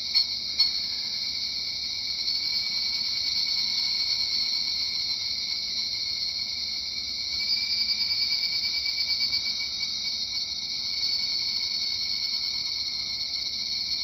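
Recorded call of a higurashi (evening cicada) played through the small speaker of a battery-powered cicada-sound toy: a continuous high-pitched cicada chorus that swells twice, around the middle and again later on.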